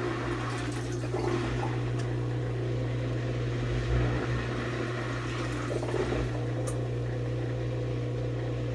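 Kuppet twin-tub mini washer's built-in drain pump running with a steady low hum while wash water rushes out through the drain hose.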